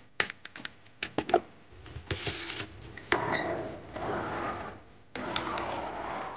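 Toy cars handled on a tabletop: a quick run of small clicks and knocks, then several short stretches of rolling, scraping noise as the diecast car and plastic excavator are pushed along the surface.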